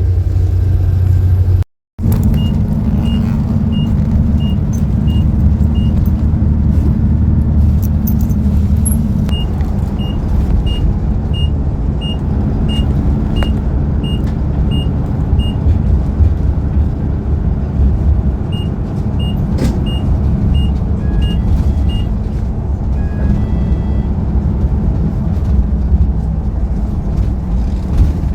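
City bus running, heard from inside: steady engine drone and road rumble. A light, regular high ticking, about two and a half ticks a second, comes and goes in three stretches. The sound cuts out for a moment near the start.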